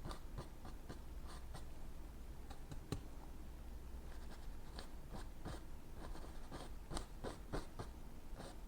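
Fan brush loaded with oil paint scraping and tapping on stretched canvas in short, irregular strokes, a few a second, with one sharper stroke about three seconds in, over a low steady hum.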